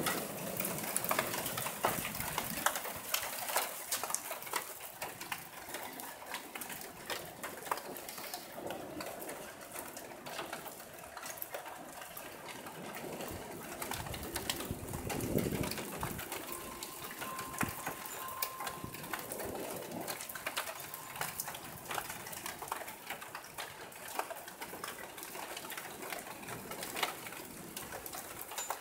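Hail and rain falling in a heavy thunderstorm: a dense, irregular crackle of small, sharp hits that never lets up.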